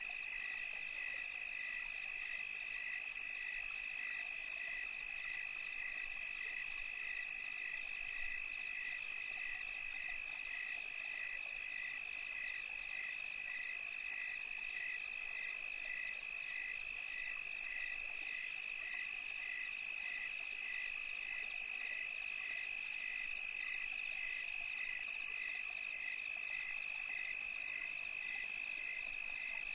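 Night chorus of insects and frogs: a steady high trill with a separate chirp pulsing evenly about three times every two seconds, over a high hiss.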